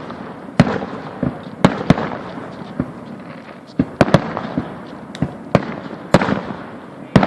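Fireworks going off: a dozen or more sharp bangs at irregular intervals, some in quick pairs, each trailing a brief echo.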